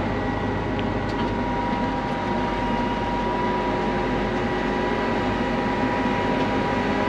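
Combine harvester engine running steadily. About a second in a steady whine joins it as the hydraulics raise the header.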